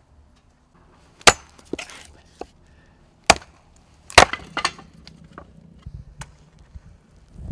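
Hatchet chopping wood: three sharp blows, the first two about two seconds apart and the third a second later, with smaller splintering cracks after the first and the last.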